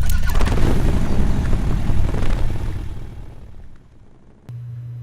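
Harley-Davidson Softail Night Train V-twin rumbling through a Bassani Road Rage 2-into-1 exhaust, deep and loud, fading away about three to four seconds in. A low steady hum starts near the end.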